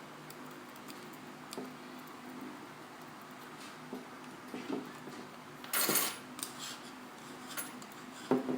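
Small metal repair tools clicking and tapping against the iPhone 4S and the work surface, in scattered light clicks, with a brief scraping clatter about six seconds in.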